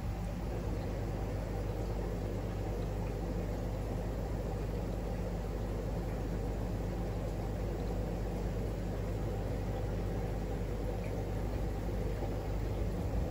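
Steady low hum with an even hiss of running water: aquarium pumps and filtration running in a fishroom.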